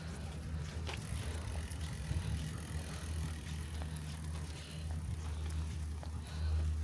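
Scattered crackles of footsteps on dry leaves and twigs on a forest floor, over a steady low rumble of wind on the microphone.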